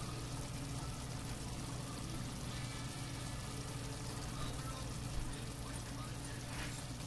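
Chicken and onions simmering in sauce in a frying pan: a steady bubbling hiss over a low, even hum.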